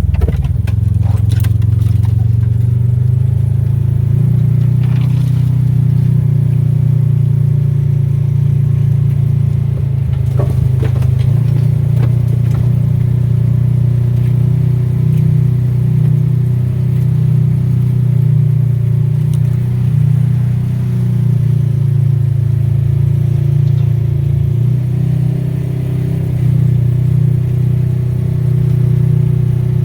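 A vehicle engine running with a steady low drone. Its pitch shifts a few times, about 4, 11 and 24 seconds in. Light knocks and rattles come through now and then, mostly in the first dozen seconds.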